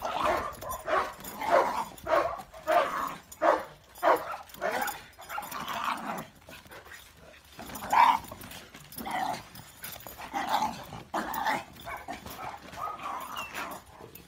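Dog barking in quick repeated barks, about two a second for the first five seconds, then in scattered single barks, the loudest about eight seconds in.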